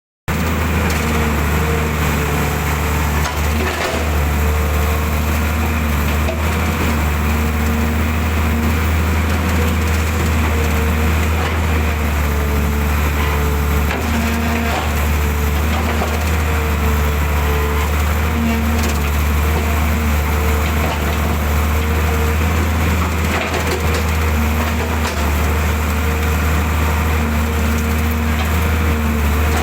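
Hydraulic excavator's diesel engine running steadily while digging, with a few brief knocks and cracks.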